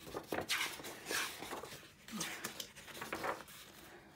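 Paper pages of a large hardback book being turned by hand, rustling and swishing in several strokes.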